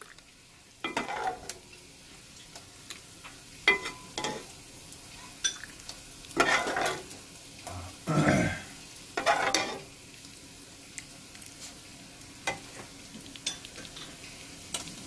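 A metal ladle scooping spicy beef soup from a pot and pouring it into a small stainless steel food container. It makes irregular clinks of metal on metal and splashes of liquid several times, the loudest just past the middle, over a faint steady sizzle from a frying pan.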